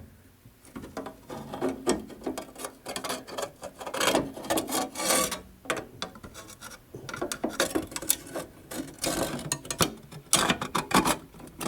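Irregular metal scraping, rubbing and light knocking as hands and tools work on a mower-deck spindle and its new bearing.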